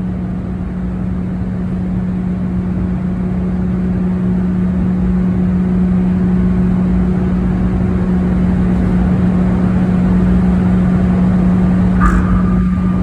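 1.2 MW Siemens asynchronous (induction) motor running: a steady hum on one constant low tone over a broad rushing noise, slowly growing louder. A short sharp click about twelve seconds in.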